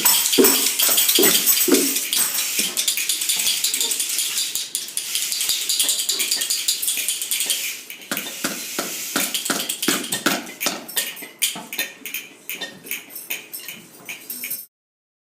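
Many hand percussion instruments played together: a dense shaking hiss with quick taps and clicks and some lower thumps early on. It thins out and grows quieter in the second half, then stops abruptly near the end.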